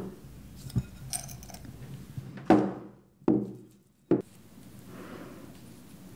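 A few knocks and thunks of a metal spoon against a cardboard seed tray and plate as soil is spooned into the cells, with one short ringing clink; the two loudest thunks come about halfway through.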